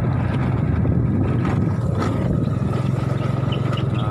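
Small motorcycle engine running steadily at cruising speed, heard from on the bike.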